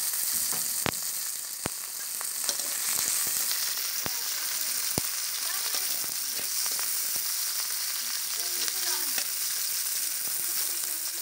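Chopped onion and green chillies sizzling in hot oil in a wok, with a few sharp clicks of a metal spatula against the pan as they are stirred.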